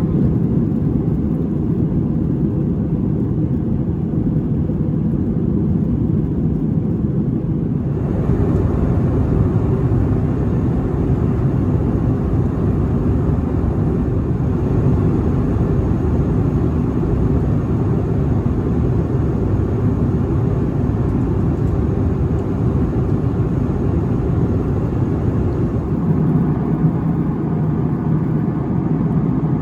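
Steady cabin noise inside an Airbus A321-200: a continuous low rumble of engines and airflow. It turns a little brighter and hissier about eight seconds in.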